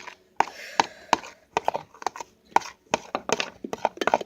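A stirring utensil clacking against a mixing bowl while slime ingredients are mixed: quick, irregular knocks, a few each second.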